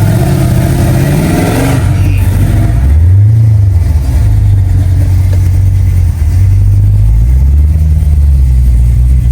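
Car engine running loud, rising and falling in pitch in a brief rev about three seconds in, then holding steady until its pitch shifts again near the end.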